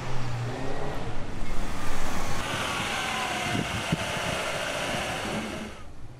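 A car close by: engine running, then a louder hiss with a falling whine for about three seconds that cuts off near the end.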